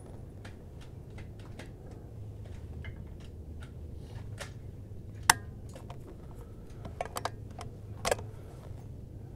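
Clicks from handling a bolt-action rifle. Faint ticks run throughout, with one sharp click about five seconds in and then a quick cluster of clicks and a louder click near the end.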